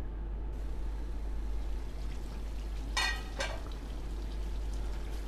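Chicken and potato curry simmering and lightly sizzling in an aluminium karahi, with two short ringing metallic clanks about three seconds in as the pan's aluminium lid comes off.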